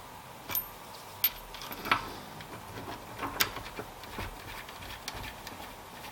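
Scattered light clicks and knocks of hand tools and a small steel part being handled, the sharpest about two seconds and three and a half seconds in.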